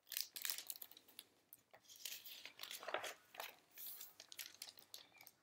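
Paper rustling and crackling as the pages of a picture book are turned and handled: a quiet run of many small irregular crinkles and clicks.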